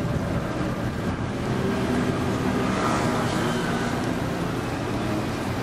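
Steady low rumble of a canal tour boat's engine running.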